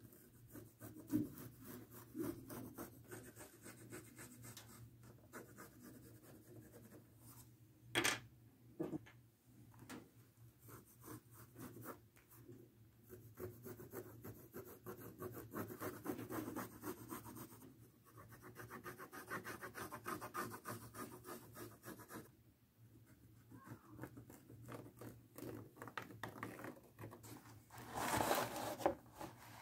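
Pencil scratching and rubbing in short strokes across the rough flesh side of a leather hide as a pattern is drawn. Louder handling sounds come about eight seconds in and again near the end, when the leather is shifted.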